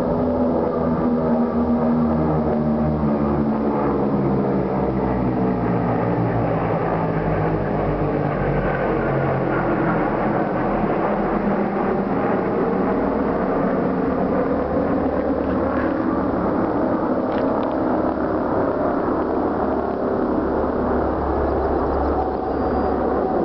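Engines of military aircraft flying low overhead in groups of three, a loud continuous drone. Its tones slide slowly down in pitch as the first group passes, then it turns into a steady, even roar as the next jets come over.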